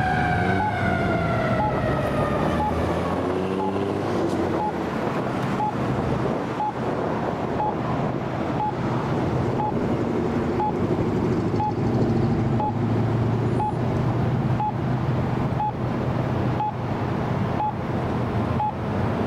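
Fire truck siren falling in pitch and dying away over the first few seconds, then street traffic and idling engines. A short beep repeats about once a second throughout.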